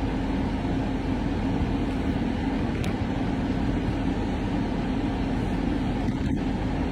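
Steady low hum and rumble of a running vehicle, unchanging throughout.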